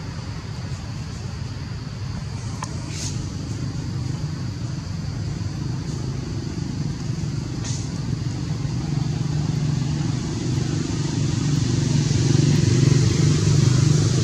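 A steady low engine hum that grows louder in the last few seconds, with a faint high steady hiss above it.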